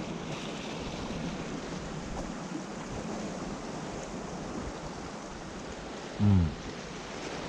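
Sea surf washing steadily against a rocky shore, with a brief spoken exclamation about six seconds in.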